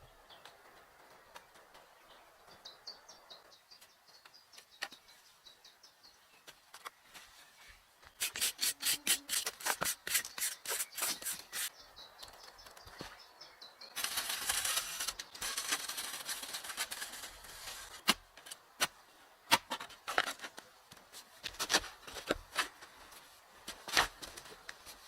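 Hand-tool work in the woods: a run of quick, evenly spaced rubbing strokes at about five a second for several seconds, then a few seconds of rasping scraping, then scattered single knocks. Faint bird chirps can be heard before the work starts.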